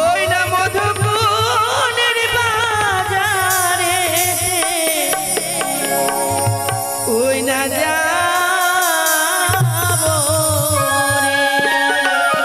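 Bengali Manasa gaan folk music: an ornamented, wavering sung melody over a hand-drum beat that drops in and out.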